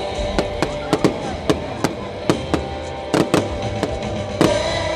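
Aerial fireworks bursting overhead: a quick, irregular run of sharp bangs, about a dozen in five seconds, with one of the loudest near the end. Music plays steadily underneath.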